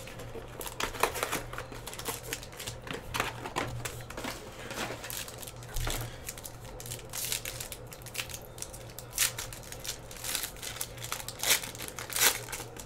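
Foil trading-card pack wrapper crinkling and tearing as it is opened by hand and a card is drawn out, in irregular rustles and crackles, over a low steady hum.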